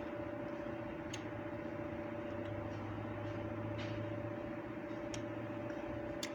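Steady mechanical hum of workshop machinery, a constant pitched drone with a deeper hum that swells in the middle, with a few faint light clicks.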